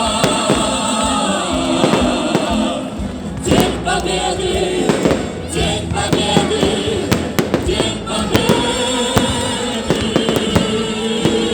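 Fireworks salute bursting and crackling in rapid, irregular bangs, over loud music with singing.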